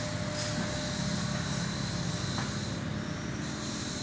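Steady low rumble of outdoor background noise, with a faint click about two and a half seconds in.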